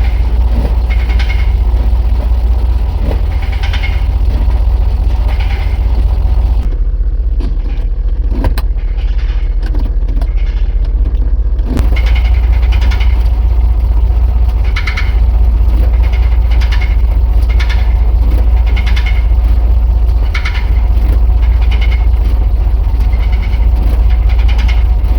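GMC W4500 truck running with a repeated knock, roughly once a second, from the transmission area over the steady engine hum. For a few seconds near the middle the knocking mostly drops away, leaving a couple of single sharp knocks.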